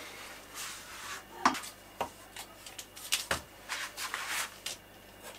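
Light handling sounds: a few sharp clicks and knocks, with brief rustling about four seconds in, as a folding rule is handled and stood upright against a small speaker.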